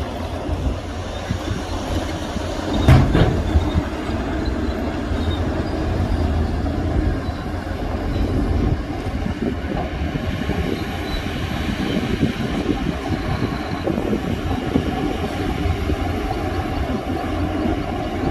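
Heavy earthmoving machinery working: a continuous diesel rumble with clanking, and a loud bang about three seconds in.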